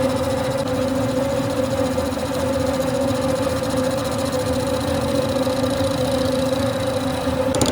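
Manual lathe running steadily, a constant mechanical hum with a steady drone from its motor and gearing.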